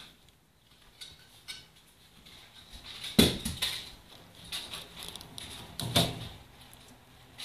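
Wire cage bars rattling and clicking as a hamster climbs them and drops back down. Two louder knocks stand out, about three seconds in and about six seconds in.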